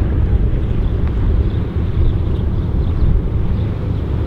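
The two radial engines of a Catalina flying boat (Canadian Vickers Canso) run steadily at taxiing power as it moves across the water. The sound is an even, low engine tone that does not change.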